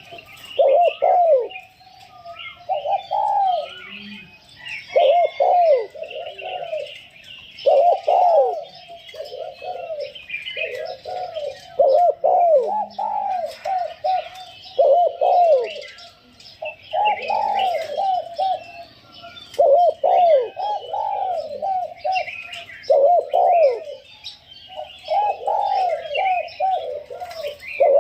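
Decoy spotted dove cooing: phrases of arched coo notes repeated every two to three seconds. Small birds chirp faintly and higher in the background.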